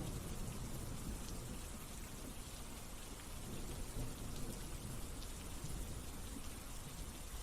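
Steady low hiss with a faint low rumble and no distinct events: background room tone.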